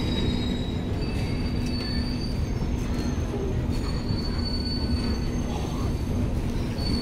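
Passenger express train's LHB coaches rolling past on the rails with a steady rumble, and a high-pitched wheel squeal that comes and goes.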